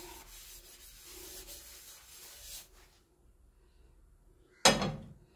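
Paper towel with ghee rubbed faintly over the surface of a flat crepe pan, then near the end one sharp clunk as the pan is set down on the gas stove's grate.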